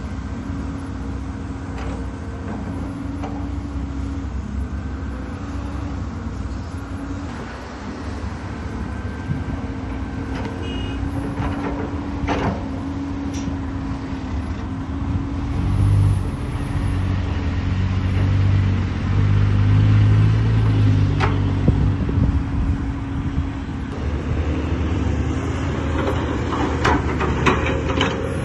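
Caterpillar 320D hydraulic excavator's diesel engine running steadily while digging. Past the middle it grows louder and heavier for several seconds as it works under load, and there are scattered sharp knocks and clatters near the middle and the end.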